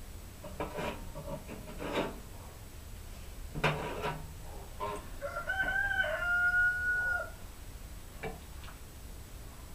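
A rooster crows once about halfway through, one call of about two seconds. Before and after it come a few short knocks from hands handling a wooden post and a metal hook.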